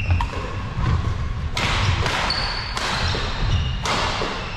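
Badminton play on a wooden sports-hall court: shoes squeaking and feet thudding on the floor. Three short rushes of noise come about a second apart in the second half.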